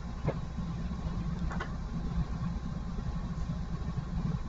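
Steady low rumble of background noise with a couple of faint clicks, about a third of a second and a second and a half in.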